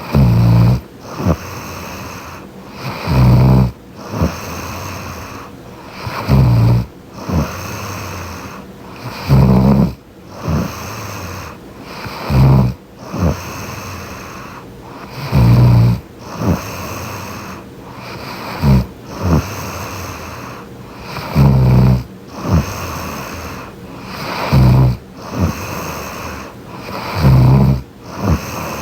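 A young woman snoring close to the microphone: a loud, low snore about every three seconds, with softer breathing between the snores.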